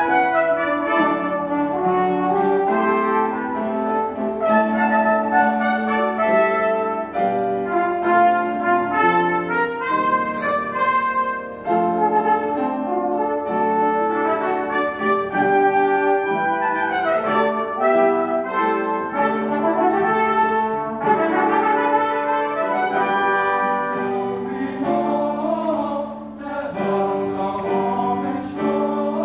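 A choir singing with piano and a small instrumental ensemble accompanying, in held chords that move from note to note.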